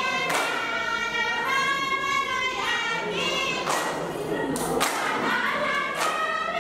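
A group of voices singing a Tharu folk song in chorus for a stage dance, with a few sharp knocks cutting through: one about a second in and a cluster around the middle.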